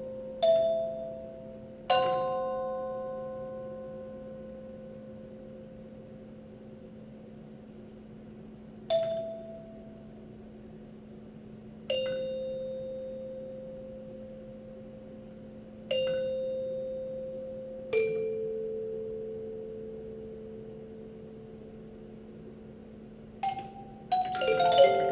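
Heliphon robotic glockenspiel striking single metal bars a few seconds apart, about six notes, each ringing out long and slowly dying away. Near the end it plays a quick run of several notes.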